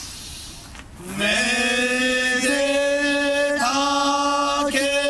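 Male voices chanting. About a second in they slide up into one long held note, which they keep at the same pitch and re-attack with short breaks about once a second.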